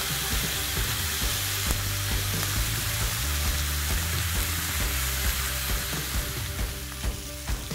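Bacon and chorizo bacon strips sizzling steadily on a hot flat-top griddle.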